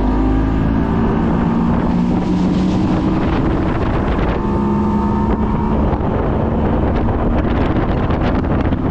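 Boat's outboard motor running under way, a steady drone with wind buffeting the microphone.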